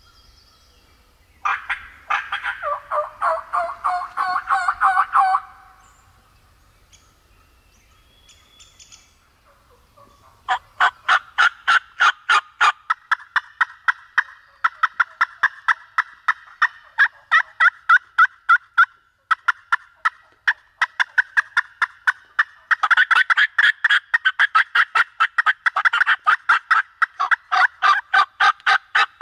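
Turkey yelping: a burst of fast, raspy yelps for about four seconds, then after a pause a long unbroken run of rapid yelps at about five a second, from about ten seconds in, louder for a stretch near the end.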